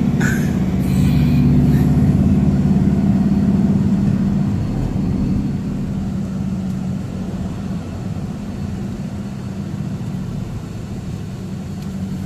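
Engine of a moving road vehicle running with a steady low hum, louder for the first few seconds and then easing off.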